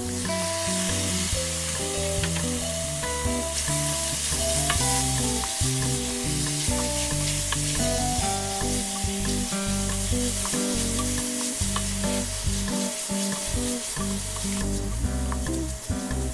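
Sliced pork belly sizzling and frying in hot oil with sautéed garlic and onion in a stainless steel pan, stirred with a wooden spatula; the sizzle grows louder a few seconds in and eases near the end. Background guitar music plays underneath.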